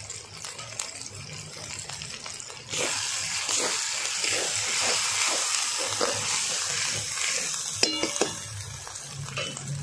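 Spice masala frying in mustard oil in a pan, stirred with a spatula: the sizzling jumps louder about three seconds in, with scraping strokes about three a second. Two ringing metal clinks near the end, the spatula knocking on the pan.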